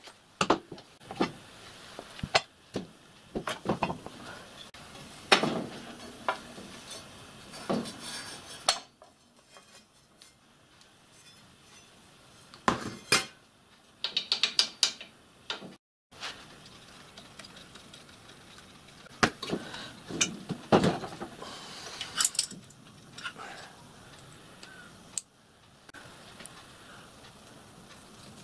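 Hand tools working nuts, bolts and plates on a miniature steam locomotive's metal frame during strip-down: scattered sharp metal clicks, clinks and knocks, with a quick run of ratchet-like clicks about halfway.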